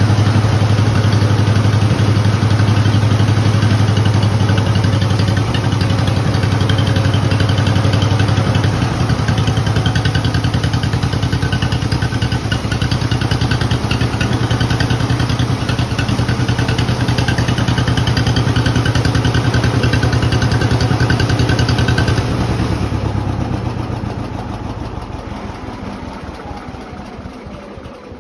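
Antique John Deere tractor engine idling steadily through its upright exhaust stack, the sound falling away gradually over the last few seconds.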